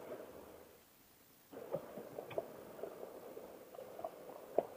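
Faint riding noise from a motorcycle on a gravel road: a low steady hum with scattered light ticks, dropping almost to silence for about half a second about a second in.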